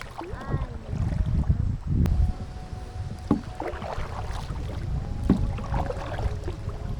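Kayak paddling on a river: paddle strokes in the water, with wind rumbling on the microphone and a few short, sharp strokes about two, three and five seconds in.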